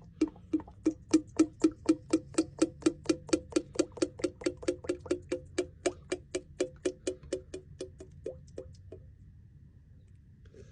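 Motor oil glugging out of a jug into the engine's fill hole, a steady run of about four glugs a second that slowly weakens and stops about nine seconds in as the jug empties.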